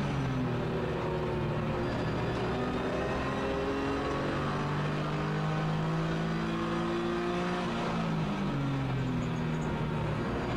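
BMW E46 325ti Compact's 2.5-litre straight-six racing engine pulling hard under load, heard from inside the cabin. Its note climbs slowly for about seven seconds, then drops near the end as the driver lifts or changes gear, over steady wind and tyre noise.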